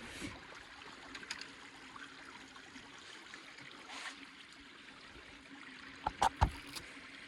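Water trickling and lapping over shore stones, with a cluster of a few sharp knocks about six seconds in.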